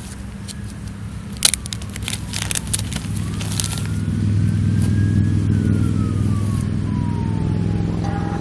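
A low motor drone swells to a peak about halfway through and then eases, with a distant siren wailing slowly up and down over it. Sharp crackling clicks come in the first few seconds.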